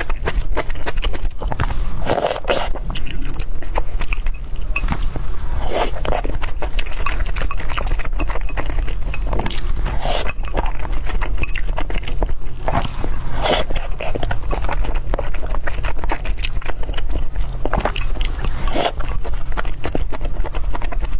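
Close-miked eating sounds: chewing and mouth smacks on dumplings in broth, with frequent short clicks and scrapes of wooden chopsticks against a glass bowl, over a steady low hum.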